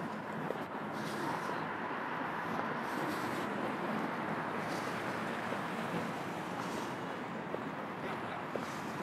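Steady city street ambience: a continuous, even hum of traffic on the road beside the pavement.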